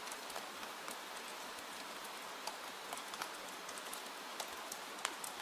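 Steady rain hiss with scattered sharp ticks and crackles, the loudest one about five seconds in.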